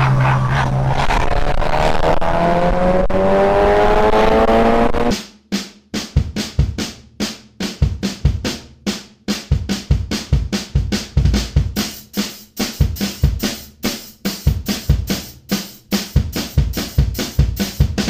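A motorcycle engine revving up steadily as the bike accelerates, with wind rush. About five seconds in it cuts off abruptly and drum-led rock music with a steady beat takes over.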